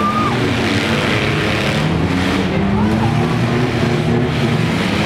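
Several small demolition-derby cars and mini trucks running at once, their engines revving up and down over each other, with a brief high tone at the very start.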